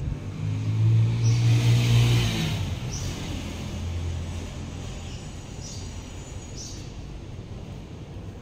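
A motor vehicle passing outside: its engine and tyres grow loud about half a second in and then fade slowly away over the next few seconds. A door-handle click at the very start.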